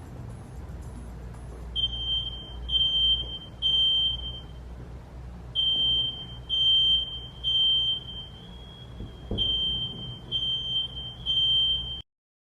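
Smoke alarm beeping a high-pitched tone in the temporal-three pattern: three beeps, a pause, three more, repeated three times, the standard fire-evacuation signal. It is a recording of a fire alarm sound played as a prank, and it starts about two seconds in and cuts off abruptly near the end.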